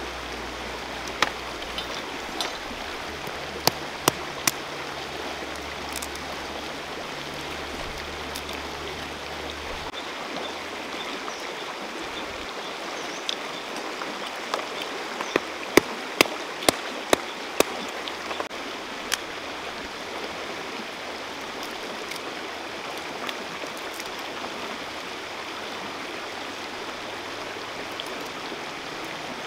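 Shallow river running steadily over stones, with sharp clicks and snaps on top: a few in the first five seconds and a quick run of them about halfway through.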